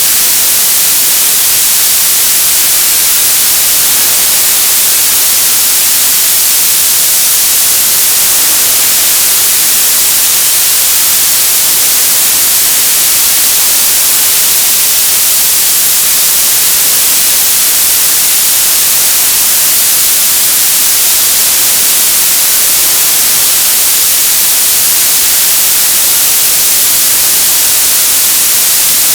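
Television static: a loud, steady hiss of white noise, brightest in the treble, with no change throughout.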